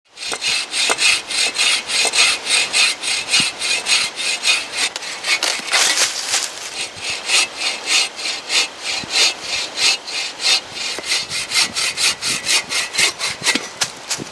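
Hand saw cutting through a dead log, in quick back-and-forth strokes about three a second.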